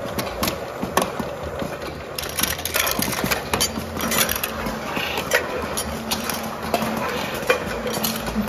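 Microcanner in-line canning machine running: aluminium cans knock and clink along the stainless conveyor through the filler and seamer, with many sharp clicks from the mechanism over a steady motor hum.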